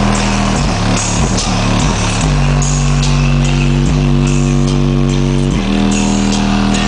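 Electronic dance music played loud through a Volkswagen Gol's basic car audio system: held bass notes that change pitch every second or two over a heavy low bass, with regular hi-hat ticks on top.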